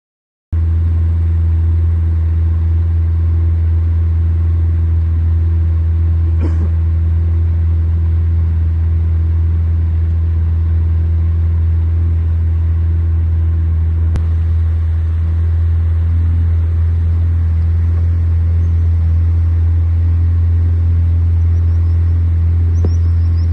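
Boat engine running at a steady speed, a loud, even low drone that starts about half a second in.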